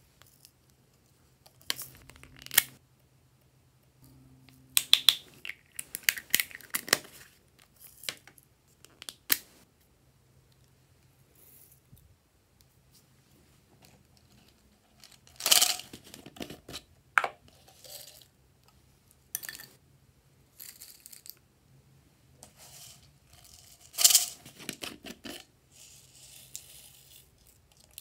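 Small plastic toppings containers being twisted and snapped open and shaken out, giving clusters of sharp plastic clicks and rustling with quiet pauses between, and a soft hiss near the end as loose toppings pour out.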